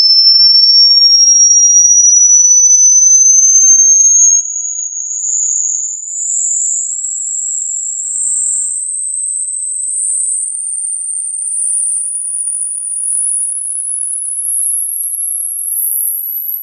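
Hearing-test tone: a single pure, very high-pitched tone sweeping steadily upward in pitch. About four seconds in it drops in loudness and carries on climbing in small steps to an even higher whine.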